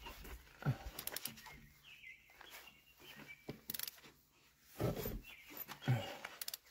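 Engine being turned over slowly by hand to check for starter interference: scattered clicks and a couple of dull knocks, with birds chirping in the background.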